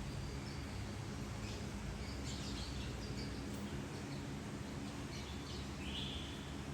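Lilian's lovebirds chirping: short, high chirps scattered a few times over a steady low background hum.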